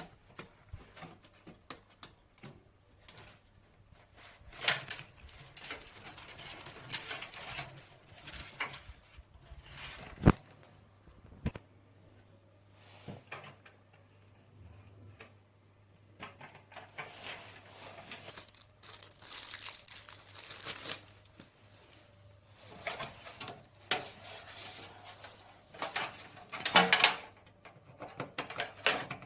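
Hands handling parts and packaging: intermittent crinkling and rustling with scattered clicks and knocks, including two sharp clicks about ten and eleven seconds in.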